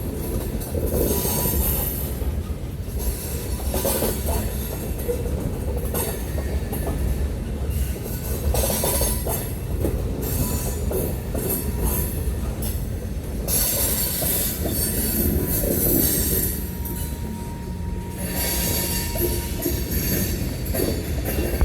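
Loaded freight cars of a long train rolling past, a steady rumble of steel wheels on rail with knocks and clacks scattered through it.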